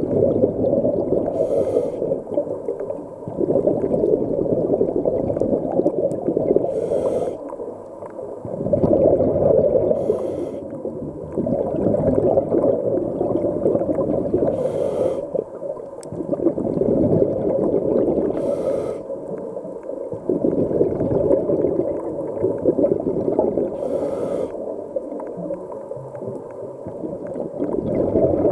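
Scuba diver breathing through a regulator underwater: six short, high hisses of inhaled air, about every four to six seconds, each followed by a long, low bubbling exhale.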